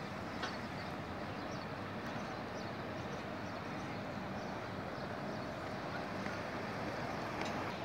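Steady outdoor background noise, an even hiss with no clear single source, with a couple of faint clicks.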